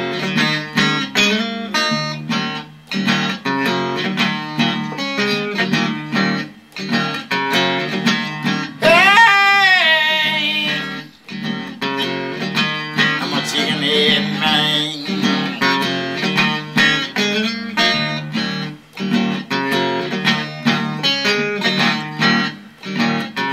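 Electric guitar playing a repeating, driving blues riff in a break between sung verses. About nine seconds in there is a brief loud note that slides downward.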